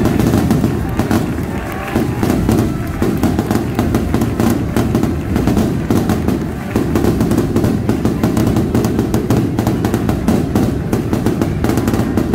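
A string of firecrackers going off in rapid, continuous crackling that starts suddenly and keeps going, dipping briefly about two seconds in and again past the midpoint.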